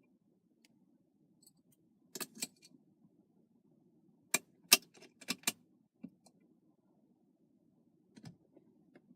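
Small metal clinks and taps as the steering wheel's bolts and hardware are handled while the wheel is fitted onto the hub adapter: a pair about two seconds in, a quick cluster of about five around the middle, and a couple more near the end, over a faint steady hum.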